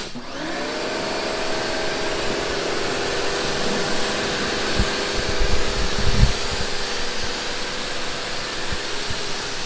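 Electric pressure washer starting up as the trigger is pulled. Its motor hum rises and settles within the first half second and then runs steadily under the hiss of the water jet spraying the car. A few low thumps come around five to six seconds in.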